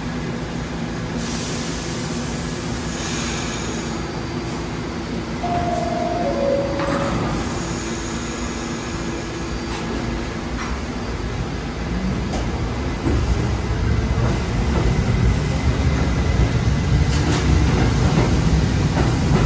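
R68 subway train at a station platform: a two-note descending door chime about six seconds in as the doors close, then the train pulls out about twelve seconds in with a rising motor whine and a growing rumble of wheels on the rails.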